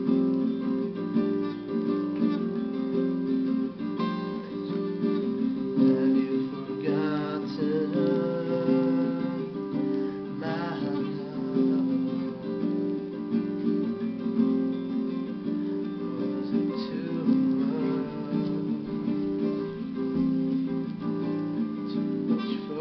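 Acoustic guitar strummed steadily through chord changes, with a singing voice coming in briefly a few times.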